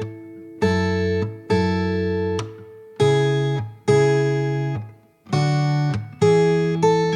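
Background music: acoustic guitar chords struck one after another, each ringing out and fading, with a new chord roughly every second.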